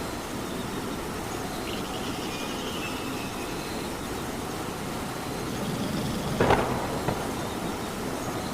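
Steady rain, with one sharp tick about six and a half seconds in.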